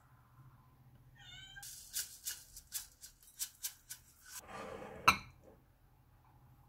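A cat meows once, briefly. Then a shaker of sesame seeds is shaken over noodle bowls in about nine quick, crisp rattles, followed by a short rustle and one sharp click, the loudest sound.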